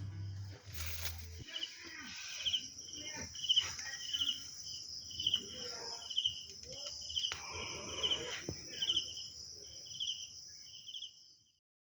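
Crickets and other insects calling: a steady high-pitched trill with a separate chirp repeating about twice a second. Background music ends about a second and a half in, and the sound cuts off just before the end.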